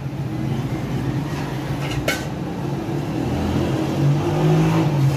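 Cooking oil poured into an empty aluminium pot (degchi), splashing onto the metal bottom, over a steady low background hum that swells near the end. A single sharp click about two seconds in.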